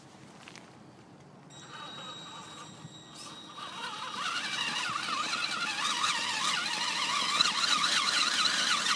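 Traxxas Summit electric RC crawler's motor and geared drivetrain whining under load in low range as it climbs over rocks, the pitch wavering quickly up and down with the throttle. A steady high tone sits underneath from about a second and a half in; the whine grows louder about four seconds in and cuts off suddenly at the end.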